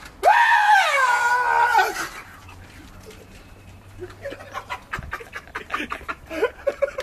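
A person's long, high-pitched howl lasting about two seconds: it rises, dips and then holds steady before breaking off. Faint short voice sounds and clicks follow.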